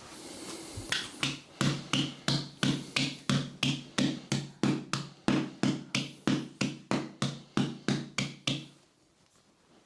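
Rhythmic percussive strikes on a person's body during a chiropractic treatment, about three to four a second for some eight seconds, over a steady low hum, then they stop.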